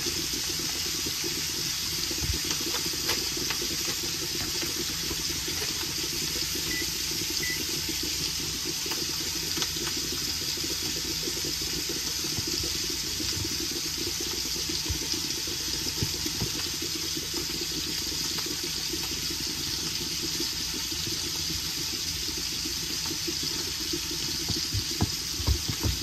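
Ground sausage frying in a pan, a steady sizzle, with a few louder knocks near the end.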